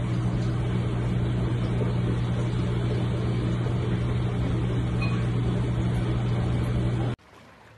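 A steady mechanical hum with a strong low tone and a hiss over it, cutting off suddenly about seven seconds in.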